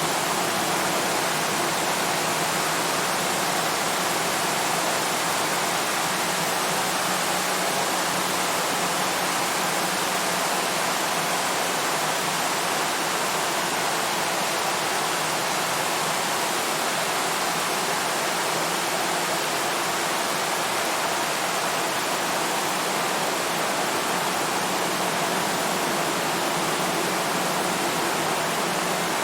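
Steady rain on a tin roof, a dense, even hiss with no single drops or thunder standing out.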